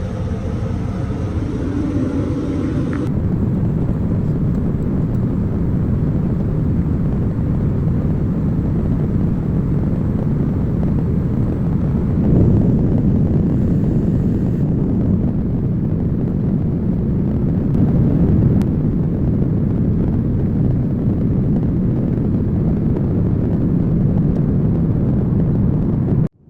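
Steady rushing cabin noise inside a Boeing 787-9 airliner in flight: engine and airflow noise, heaviest in the low range, changing slightly about three seconds in and cutting off abruptly near the end.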